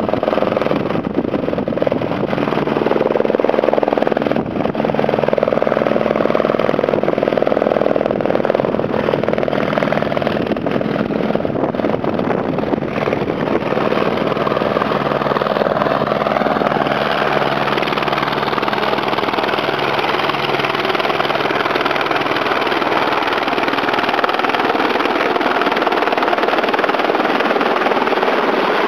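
Eurocopter AS350 B2 helicopter coming in to land, descending into a low hover: steady rotor and single-turbine engine noise.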